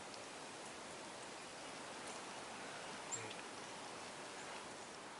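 Faint, steady outdoor background hiss, with one brief high chirp about three seconds in.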